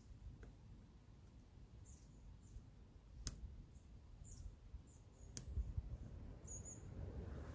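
Faint rubbing of a paper pad pressed over a vinyl decal's transfer tape on a car's side panel, with two sharp clicks a couple of seconds apart and a few faint high chirps.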